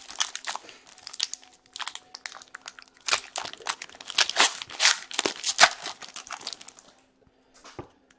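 A hockey card pack wrapper being torn open and crinkled in the hands, a run of irregular crackling and tearing that stops about seven seconds in, followed by a single small click.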